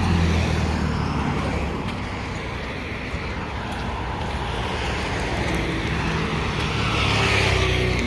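Road traffic: cars driving past close by, with engine hum and tyre noise that swells as a vehicle goes by at the very beginning and again near the end.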